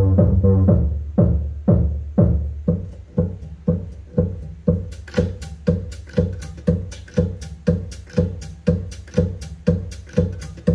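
Electronic music with a heavy bass beat, playing from a homemade pallet-wood Bluetooth speaker with a subwoofer. Strong bass thumps come about twice a second, and crisp high ticks join the beat about halfway.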